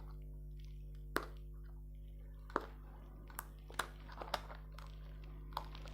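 Small sharp clicks and crackles, about six spread through a few seconds, as the tape seal on a small cardboard earbud box is picked at and peeled open. A steady low electrical hum runs underneath.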